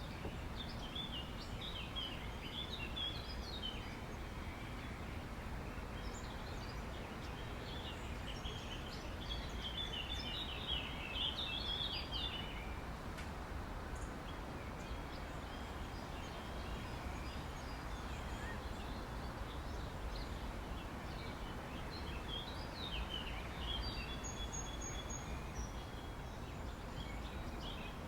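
Outdoor park ambience: birds chirping in scattered bursts over a steady low background rumble. The birdsong is busiest about ten seconds in and again near the end.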